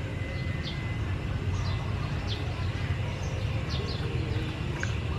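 Small birds chirping now and then, short thin high calls that drop in pitch, over a steady low outdoor rumble.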